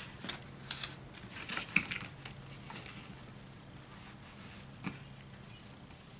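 Light clicks and taps of a small model locomotive being handled on a workbench, a quick cluster in the first couple of seconds and one more click near the end.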